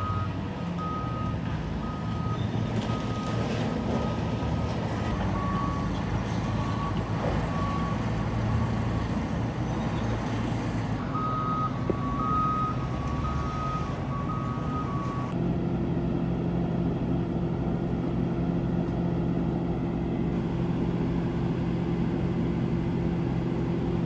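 Heavy diesel engine of an army bulldozer running, with a reversing alarm beeping repeatedly, several beeps a second. The beeping stops about 15 seconds in, and the engine then runs on at a steadier, even pitch.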